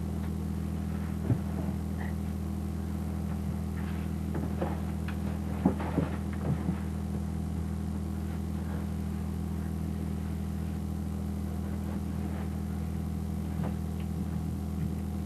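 Fishing boat's engine running at a steady pitch, heard as a constant drone inside the cabin, with a few short knocks and bumps about a second in and again around the middle.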